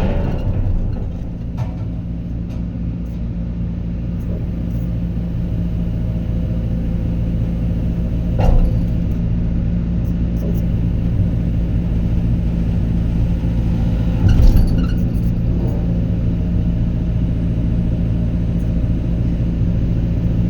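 Diesel engine of heavy construction equipment running steadily with a deep, even hum. Two brief metallic knocks come a little under halfway through and about two-thirds of the way through.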